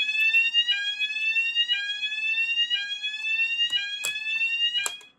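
Fulleon Roshni fire alarm sounder running on a 27-volt battery supply, sounding a slow rising sweep tone that repeats about once a second. Two sharp clicks come near the end, and the tone cuts off suddenly just before the end.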